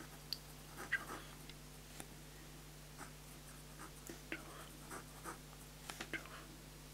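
Pen writing on a yellow lined legal pad: short, irregular scratches of the tip across the paper as words are written out.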